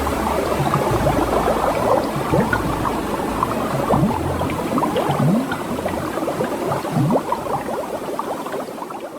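Water bubbling and gurgling: a steady stream of small bubble pops that fades near the end.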